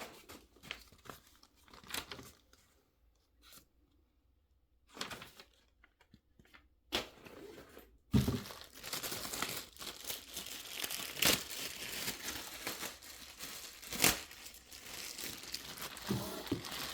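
Packaging being handled while unboxing: a few scattered taps and clicks at first, then from about eight seconds in a continuous crinkling and tearing of wrapping with sharp crackles.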